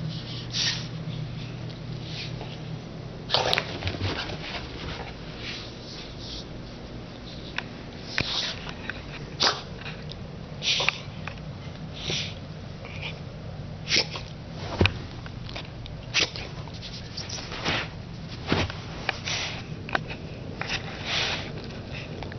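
Beagle blowing short, sharp breaths through its nose, about one every second or two at irregular intervals, with its nose pressed into the carpet.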